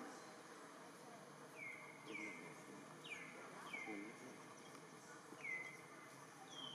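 A bird repeatedly gives short, high, downward-slurred whistled notes, about six of them at irregular intervals, over faint outdoor background noise.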